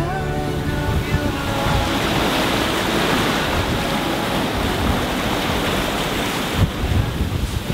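Sea water rushing and splashing past a sailboat moving fast under sail in strong wind, with the wind gusting on the microphone in low, uneven buffets near the end.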